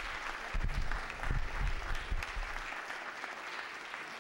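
Audience applauding: many hands clapping together in a dense patter that slowly tapers off. There are a few low thuds in the first two and a half seconds.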